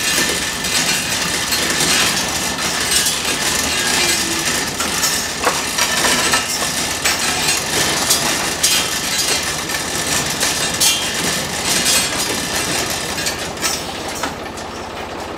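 Overhead sectional garage door rolling up, its rollers clattering and rattling along the steel tracks for about fourteen seconds before the noise drops away near the end.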